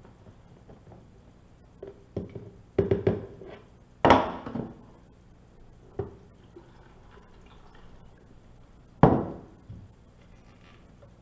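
Plastic knocks and clunks from handling a blender cup and a plastic water jug, with liquid poured from the jug into the cup over cut fruit. Two loud clunks stand out, one about four seconds in and one near the end.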